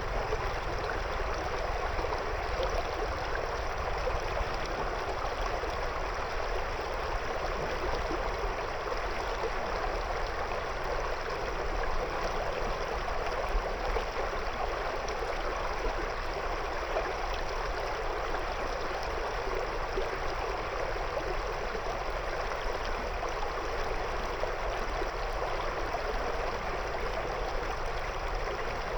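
River water flowing and bubbling steadily around stones, a continuous rushing murmur with no breaks.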